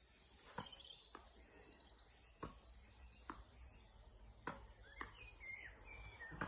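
Faint knocks of a tennis ball being punched back off a racket and caught, about seven in all at irregular spacing. A bird chirps faintly near the end.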